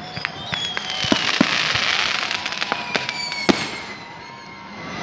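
New Year's fireworks going off: scattered sharp bangs over a crackling hiss, the loudest about a second and a half in and again about three and a half seconds in, with high whistles sliding slowly down in pitch.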